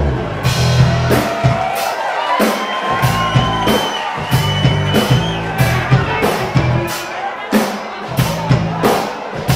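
Live rock band starting up loudly all at once: overdriven electric guitar, electric bass and a drum kit playing a driving rhythm with regular drum hits.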